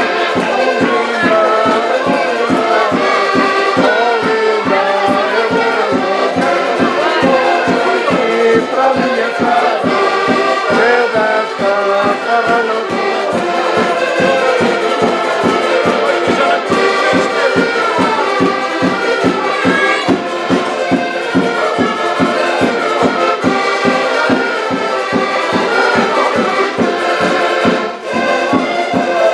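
A band of several accordions playing a lively traditional Portuguese folk tune together, with a steady, quick beat.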